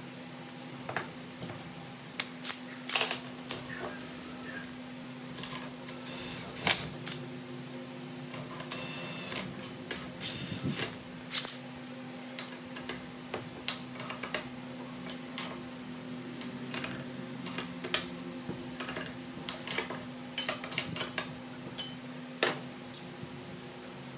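Metal tools and engine parts clicking and clinking irregularly as a Honda GX120's cylinder head and rocker arms are worked on by hand, over a steady low hum.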